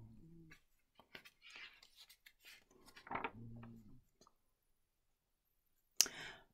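A large paperback picture-book page being turned and handled: soft paper rustling with small clicks, then a short, sharper rustle near the end.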